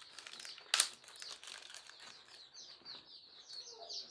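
A syringe's plastic packet crinkling as it is opened, with one sharp rip about three-quarters of a second in. Chicks peep steadily in the background.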